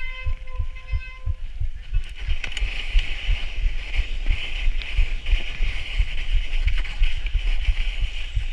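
Muffled knocking and rumbling as a handlebar-mounted camera is jolted on a fat bike rolling over packed snow. A high whine stops about a second and a half in, and a steady hiss sets in about two seconds in.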